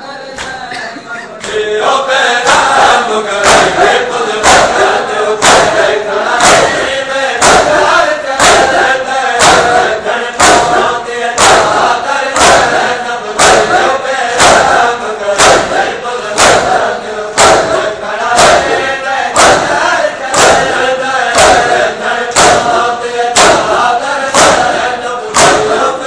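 A crowd of male mourners chanting a noha in unison while beating their chests in matam. The hand strikes land in a steady rhythm about once a second, and the whole thing grows louder about a second and a half in.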